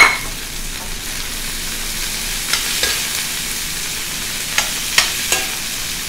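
Sugar peas sizzling in hot oil in a stainless steel wok as they are stir-fried, with a steady hiss. A sharp clatter at the very start, then a metal spatula clinks against the pan a few times.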